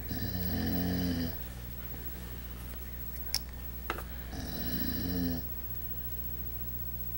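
Pet dog snoring in its sleep: two long, rumbling snores about four seconds apart, with a couple of faint clicks between them.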